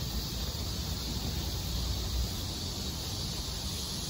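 Outdoor ambience: a steady, even high-pitched hiss over a fluttering low rumble of wind on the microphone.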